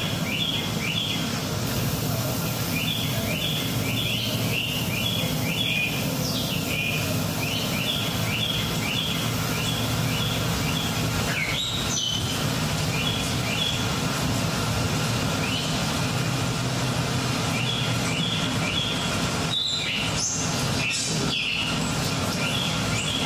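Birdsong soundtrack: small birds chirping in quick runs of three to five high notes, repeated every second or two, with a couple of louder rising calls, over a steady low hum and hiss.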